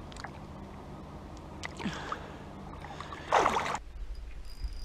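Water splashing, with a louder splash about three and a half seconds in, over a steady low hum that cuts off abruptly just after it.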